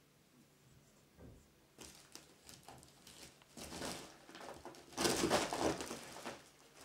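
Crinkly bag rustling and crackling as a small pet paws and noses at it, starting faint and getting loudest in a burst of crinkling near the end.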